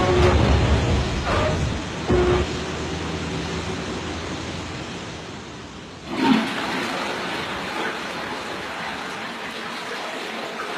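Water gushing in a steady rush, with a thump about six seconds in, after which the rush is louder and brighter.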